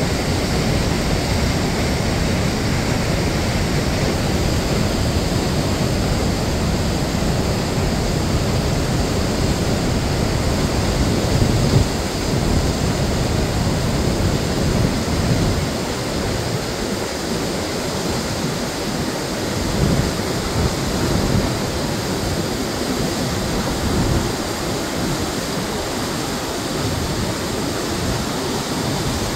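Pozo de los Humos waterfall, a heavy flow of water plunging down a rock face into a pool: a steady, loud rushing, with some uneven low rumble.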